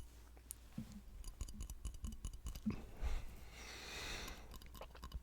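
Close-microphone ASMR trigger sounds: scattered small, soft clicks and taps, with a breathy rush of air a little after the middle.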